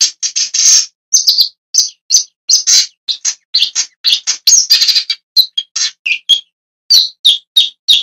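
Shrike calling: a quick series of short, harsh, scratchy notes, about two to three a second, some rasping and some higher and clearer, with brief gaps between runs.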